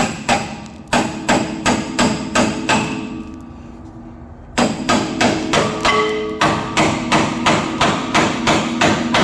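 Hammer blows on a pickle fork wedged into a front-suspension ball joint to break its taper loose: sharp metallic strikes with a ringing tone, about three a second, pausing for about a second and a half midway before resuming.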